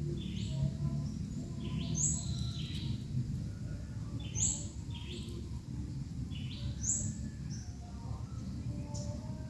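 Munias giving high, thin chirping calls that repeat about every two and a half seconds, over a steady low rumble.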